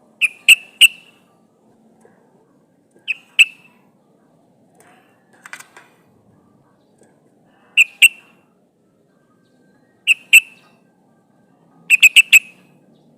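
Yellow-vented bulbul calling: short, sharp groups of two to four quick notes, repeated every two to three seconds, with a fainter burst near the middle and a four-note run near the end.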